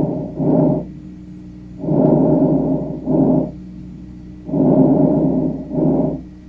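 Breath sounds heard through a stethoscope, repeating breathing cycles about every two and a half seconds. Each cycle has a longer phase of about a second and then, after a brief gap, a shorter half-second phase.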